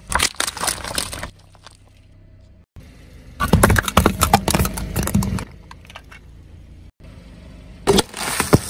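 A car tyre rolling over and crushing objects in three separate bursts of crackling and crunching. The middle, longest burst is small decorated metal tins being flattened, and the last, near the end, is a crisp canister being squashed flat.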